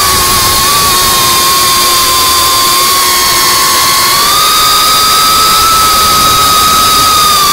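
FPV quadcopter's brushless motors and propellers whining steadily in flight, the pitch stepping up a little about four seconds in as the throttle rises.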